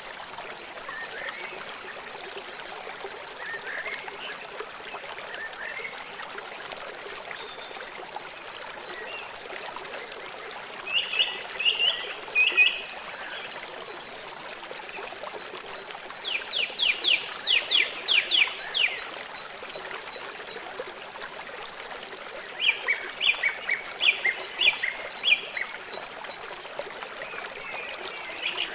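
Steady trickling of a stream, with a bird calling over it in three bursts of short, rapid notes; the middle burst is a quick run of about eight notes.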